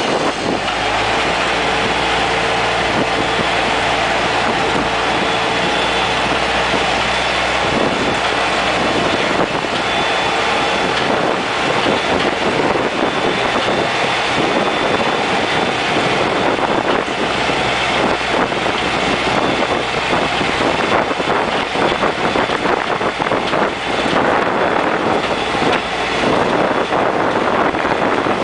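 Open-air tram rolling along a road: steady running noise of the towing engine, tyres and wind, with an even engine hum for the first several seconds, then a rougher rushing noise.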